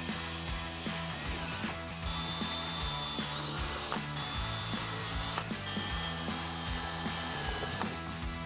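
A tool working in four bursts of a dense, buzzing rattle, each one to two seconds long with short breaks between, over quiet background music.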